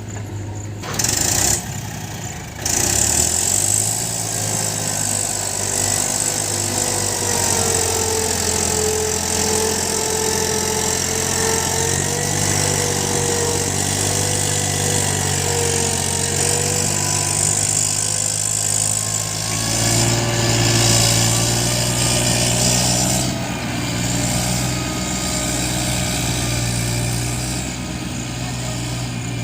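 Diesel engine of a JCB 3DX backhoe loader running steadily while it works, with a wavering whine over it that rises and falls in pitch. A brief louder burst comes about a second in, and the sound steps up again just before three seconds.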